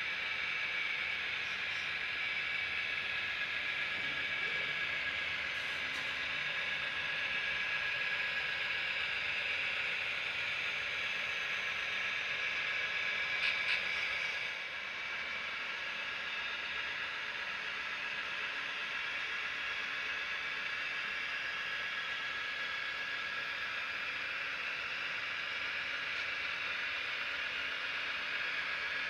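HO scale model train running on the layout: a steady whir of the diesel locomotives' motors and wheels rolling on the track. A few faint clicks come about halfway through, and the sound drops a little in level just after.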